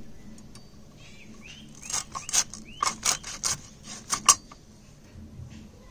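A knife cutting hilsa fish into pieces: about eight sharp cutting strokes in a run, starting about two seconds in. A few short rising bird chirps come just before and among the first strokes.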